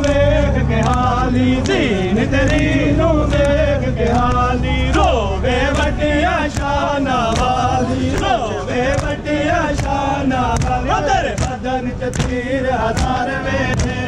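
A group of men chanting a Punjabi noha (Shia lament) in unison, with a repeated refrain. Under the voices, sharp slaps come about every two-thirds of a second: the beat of matam, hands striking chests in time with the chant.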